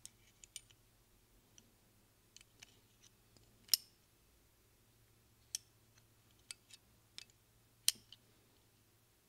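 Small metal parts of a Honda CB900 fuel-tank lock clicking and tapping against each other as the lock plate is handled and tried in place by hand. About a dozen light, sharp clicks come at irregular intervals, the loudest about a third of the way in and again near the end.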